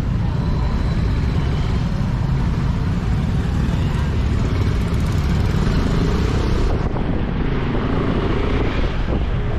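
Steady noise of dense street traffic, motorcycle and car engines running close by, with a low rumble throughout and some voices of people nearby.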